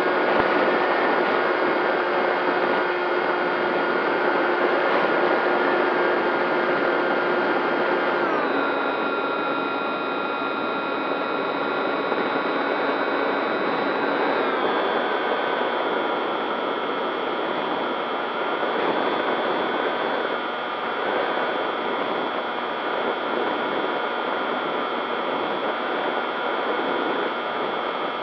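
Electric motor and propeller of a radio-controlled FPV model plane in flight: a steady whine over a hiss of rushing air. Its pitch steps down twice, about 8 and about 14 seconds in, as the throttle is eased back after the climb-out.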